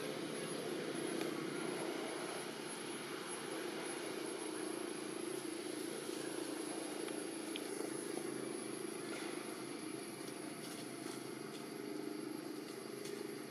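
Steady low background drone, unbroken and even in level, with a thin, continuous high-pitched whine over it and a few faint clicks near the end.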